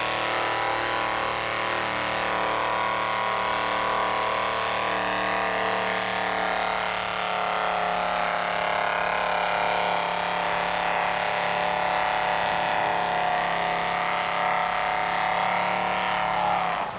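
Pickup truck engine running at steady high revs under load during a pull-sled run, holding one constant note that drops off abruptly near the end.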